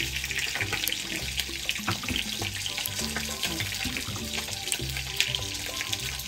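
Kitchen knife slicing green beans on a plastic cutting board, a few light scattered taps. Background music with a low stepping bass line and a steady hiss runs underneath.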